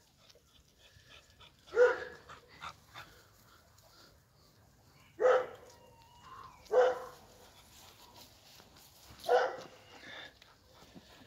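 Romanian Raven Shepherd Dog barking four times, single barks a few seconds apart, the middle two closer together.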